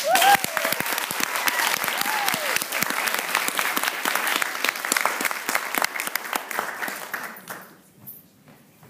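Audience applauding, with a whooping cheer at the start and another about two seconds in; the clapping dies away about seven and a half seconds in.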